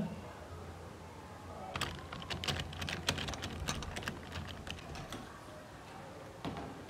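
A metal door lock and lever handle being worked, a quick irregular run of sharp metallic clicks and rattles lasting a few seconds, with one more click near the end.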